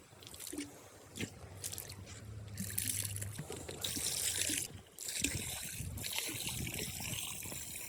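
Water trickling and splashing in a swimming pool, in uneven stretches of a second or two with short breaks.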